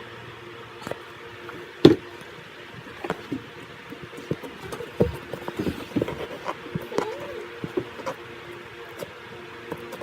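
Slime being handled: a string of short wet clicks and squelches, with one sharp click about two seconds in, over a steady low hum.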